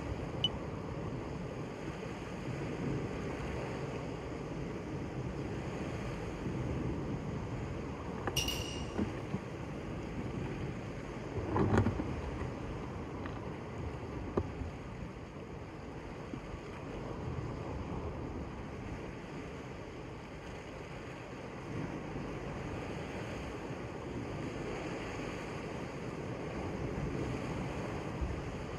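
Sea waves washing on a rocky shore and wind on the microphone, a steady rushing noise, with a few small knocks, the loudest about twelve seconds in.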